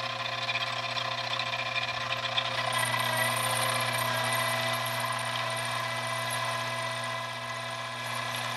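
Metal lathe running steadily at about 900 rpm while a homemade boring bar with a high-speed steel bit takes light internal cuts in an aluminium bore: a steady motor and drive hum with several steady tones over a faint cutting hiss.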